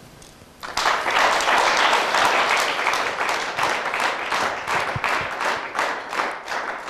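Studio audience applauding: many hands clapping together, starting suddenly about a second in and dying away near the end.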